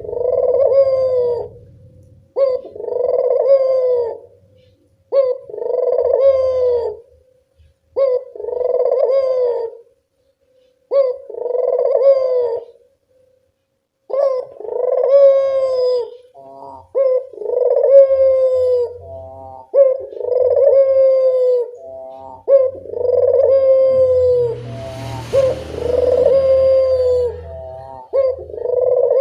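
Puter (Barbary) dove cooing over and over, one long arched coo every one to two seconds. In the second half short quick notes fall between the coos. A hiss lasting a couple of seconds comes near the end.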